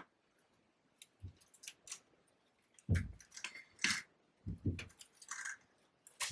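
Hands working ribbon and floral tape around a paper-flower bouquet's stems: scattered rustles and crinkles with a few soft knocks.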